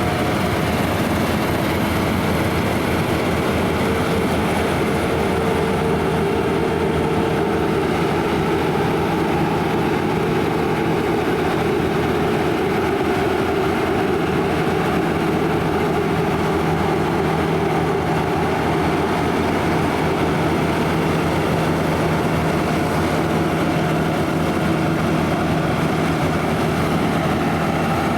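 Claas Lexion 580 Terra-Trac combine harvester running steadily while combining barley: a continuous engine and machinery drone with a steady hum.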